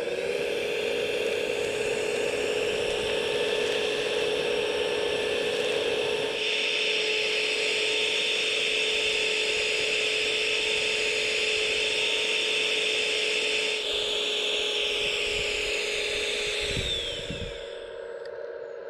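Electric hydraulic pump of an RC Liebherr A918 wheeled excavator whining steadily while the arm lifts and moves a load. It spins up right at the start, changes tone about six seconds in and again near fourteen seconds, and winds down with a falling whine about seventeen seconds in.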